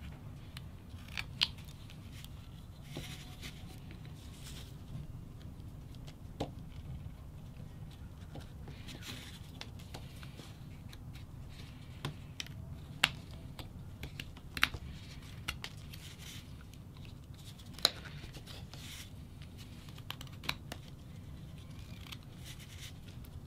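Carving knife whittling a small wooden figure: short scraping slices through the wood, with scattered sharp clicks as the blade cuts in and chips break away, over a steady low hum.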